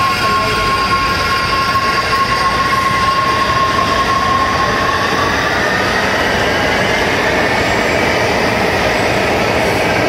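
Washington Metro subway train pulling out of an underground station. A steady high electric whine starts rising in pitch about halfway through as the train gains speed, over the rumble of its wheels on the rails.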